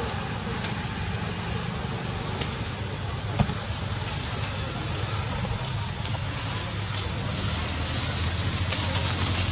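Steady outdoor background rumble and hiss that swells a little near the end, with one sharp click about three and a half seconds in.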